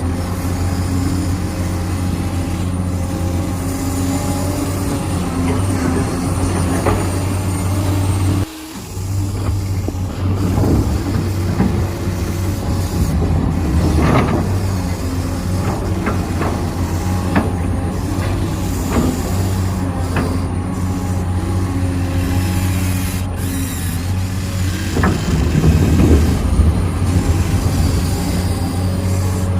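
Remote-control excavator and truck at work: a steady low engine-like drone with scattered clanks and scrapes. The drone drops out briefly about eight seconds in.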